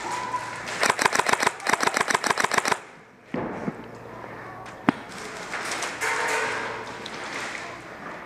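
Airsoft gun firing one full-auto burst of about twenty shots, about ten a second, lasting about two seconds. A single sharp snap follows about five seconds in.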